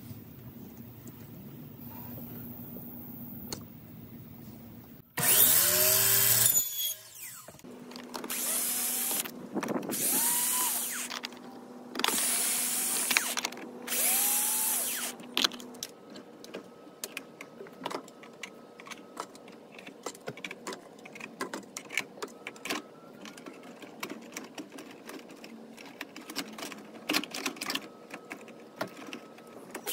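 A cordless drill-driver runs in four short bursts, each rising in pitch as it spins up, driving screws into the vinyl railing brackets. Before them, about five seconds in, one louder burst of a miter saw running and winding down; after them, many light clicks and taps as vinyl balusters are fitted into the rail.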